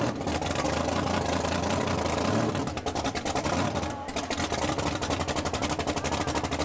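Supercharged drag-car engine idling with a rapid, even pulse.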